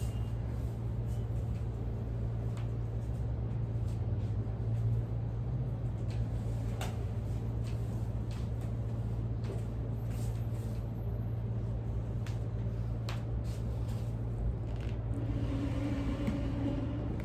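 A steady low hum, with faint rustling and a few light clicks from hands massaging a person's back.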